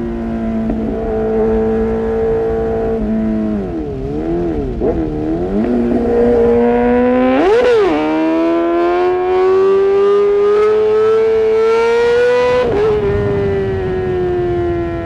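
Kawasaki ZX-6R inline-four through an Arrow Pro-Race exhaust, its engine note rising and falling with the throttle. The pitch wobbles up and down a few times in the middle, jumps in one quick rev, climbs steadily for several seconds, then drops near the end and keeps falling.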